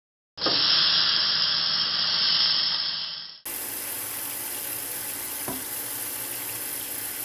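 A loud, steady hiss for about three seconds that cuts off abruptly. Then a kitchen faucet runs water steadily onto a pizza stone in a stainless-steel sink, with one light knock partway through.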